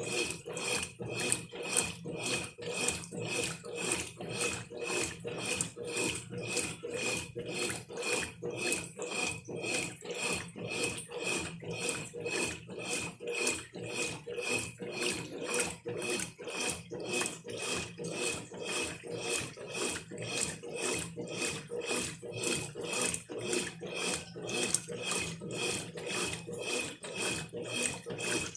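Brastemp Ative 11 kg top-load washing machine agitating a full load on turbo: water and clothes swish back and forth about twice a second in an even rhythm, over a steady high tone.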